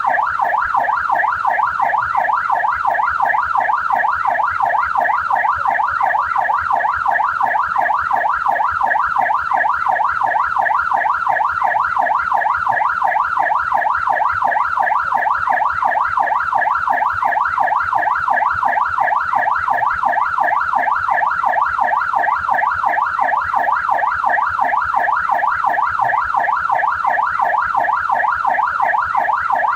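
Australian police car siren sounding a fast yelp: its pitch sweeps rapidly up and down, several times a second, without a break and at a steady level.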